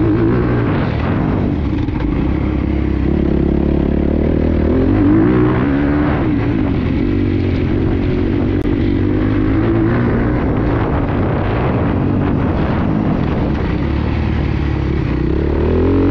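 Honda 250 four-stroke motocross bike's single-cylinder engine running under way on a dirt track, its pitch rising and falling again and again as the throttle is opened and closed.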